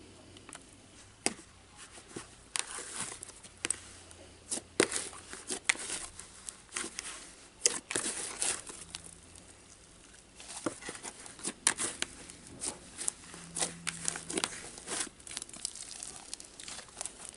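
Slime being squeezed and kneaded by hand in a plastic tub: an irregular run of wet crackling and squelching, broken by sharp popping clicks, the loudest about 1, 5 and 8 seconds in.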